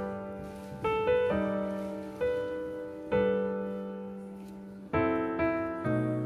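Soft background piano music: notes and chords are struck and left to ring out, a new one every second or so, with a quicker group of notes about five seconds in.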